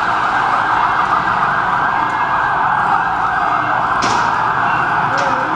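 A siren sounding continuously and loudly, with a sharp knock about four seconds in.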